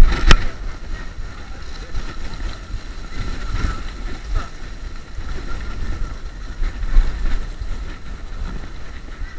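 Wind buffeting the microphone of a camera on a moving electric scooter, with low road rumble and a faint steady whine. There is a sharp knock near the start.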